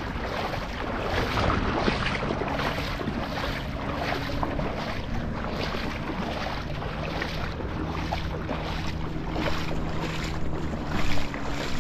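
Feet wading through shallow river water, splashing in a steady rhythm of about two steps a second.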